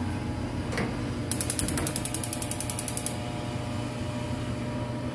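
Gas hob's spark igniter clicking rapidly, about ten clicks a second for some two seconds, as the burner knob is turned to light the flame under the pan. A single knock comes just before it, and a steady low hum runs underneath.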